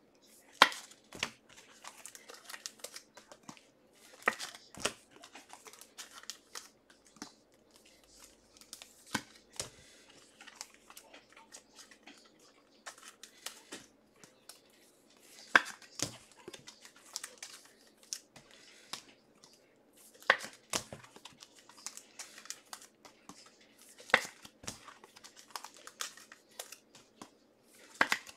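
Faint crinkling and tearing of wrapping, with scattered small clicks and a louder click every four to five seconds.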